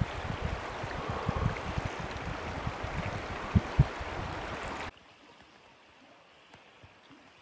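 Steady rush of a stream, with wind gusting on the microphone and two sharp knocks about three and a half seconds in. About five seconds in, the sound drops suddenly to a faint background hush.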